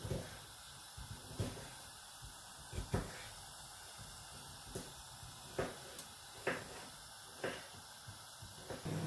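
Marinated fish fillets cooking on a wire rack under an oven grill: a faint steady hiss with scattered small pops and ticks.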